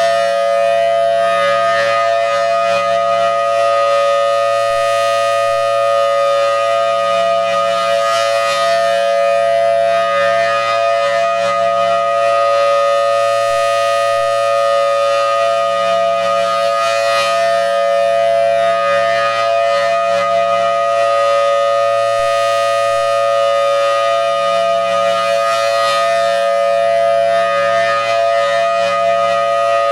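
Federal Signal Thunderbolt 1000T mechanical siren sounding a steady full-alert tone, very loud and unwavering in pitch. It swells about every nine seconds as the rotating horn sweeps past.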